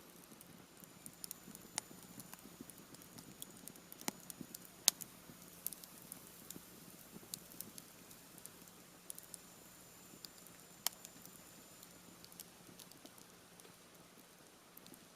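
Campfire of half-dried cedar wood crackling, with irregular sharp pops of varied loudness over a low steady burn. The sharpest pops come about four and five seconds in.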